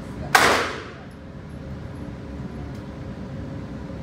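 A single shot from a .300 Blackout AR-style rifle about a third of a second in, with a short echoing tail from the indoor range.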